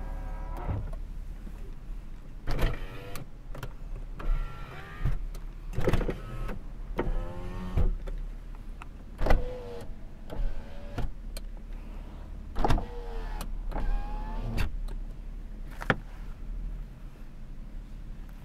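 Electric power-window motors of a 1994 Toyota Aristo sedan, run in about a dozen short bursts, each a brief whine that bends in pitch, with sharp switch clicks between them over a steady low hum.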